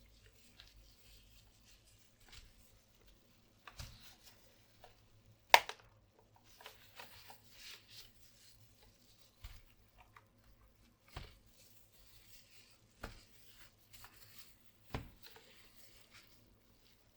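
Hands working on a mechanical keyboard's plastic parts: scattered sharp clicks and knocks with faint rustling between. The loudest knock comes about five and a half seconds in, and single knocks follow roughly every two seconds.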